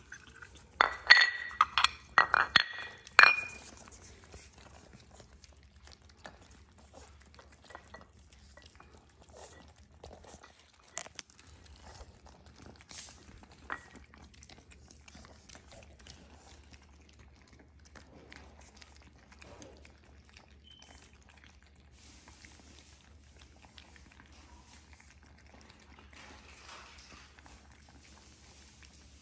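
White ceramic dog bowls clinking sharply, with a short ringing, several times in the first few seconds as they are handled and set down. After that come faint small clicks and chewing as Shih Tzu puppies eat from the bowls.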